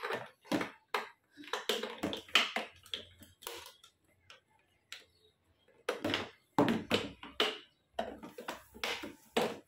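Scattered light knocks and taps of hard plastic on a baby's high chair: a sippy cup handled on the plastic tray and the plastic footrest being fitted beneath. They come in two irregular runs with a pause of about two seconds in the middle.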